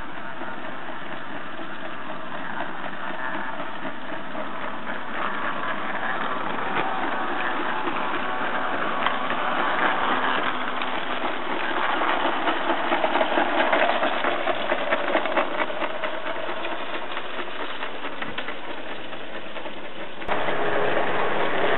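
A 16mm-scale model diesel-outline locomotive running along garden railway track, with a steady engine-like running sound. It grows louder with quick clicks in the middle stretch as the loco passes close, and the sound changes abruptly near the end.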